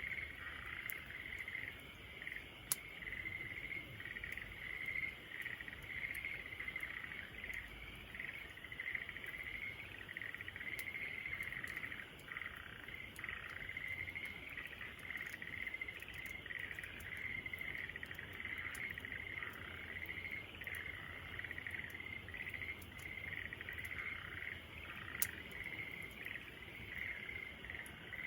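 Insects chirring in a steady, pulsing high trill, with a few sharp pops from a crackling wood fire.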